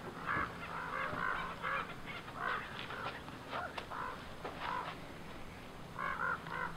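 Birds calling: a series of short, repeated calls, some in quick runs of two or three, with a burst of them near the end.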